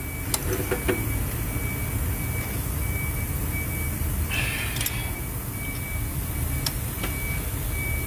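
Steady low rumble of vehicle traffic, with a few light metal clicks and a short scrape about four seconds in as a socket and extension are fitted onto the cylinder head bolts.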